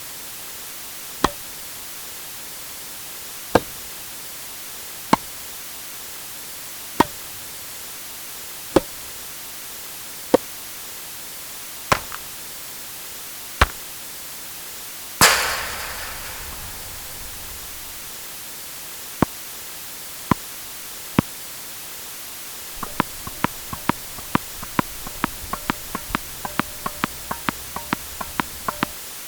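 Outdoor tennis: crisp tennis ball and racket hits, one every one and a half to two seconds like a rally, over a steady hiss. About halfway through comes one louder hit with a long fading tail. After three more hits, the last six seconds hold a rapid, irregular run of small ball ticks.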